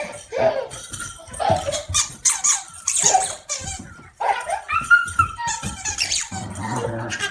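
A puppy squeaking and whining in a busy run of short, high-pitched cries, some sliding in pitch.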